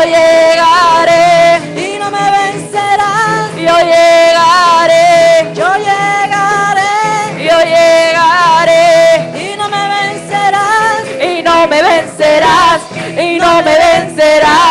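Women singing a Spanish worship chorus through handheld microphones and a loud PA, the voice stretching into long held, wavering notes.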